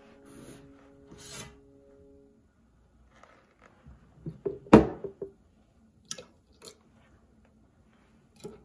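A ceramic coffee cup and a steel milk jug handled on a stone counter: a scattering of short knocks and clinks, the sharpest about halfway through, with a couple more near the end as the jug is lifted to pour.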